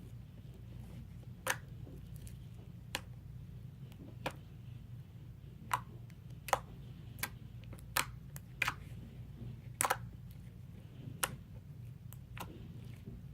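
Sticky homemade slime, made from a PVA peel-off face mask with borax activator, being poked and pressed with the fingers, giving irregular sharp clicks and pops, about a dozen in all, over a steady low hum.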